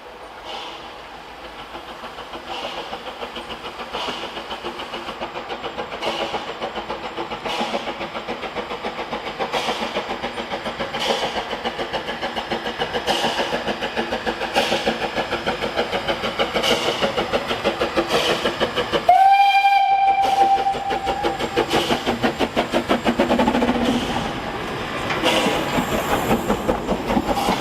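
Henschel narrow-gauge steam locomotive running with its train, getting louder as it approaches, wheels clicking over rail joints about every second and a half. About two-thirds of the way in it gives one steady whistle blast of about two seconds.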